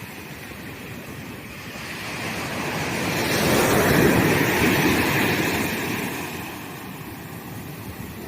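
Ocean wave breaking and washing up on a sandy beach, swelling to a peak about four seconds in and then fading away to a quieter wash.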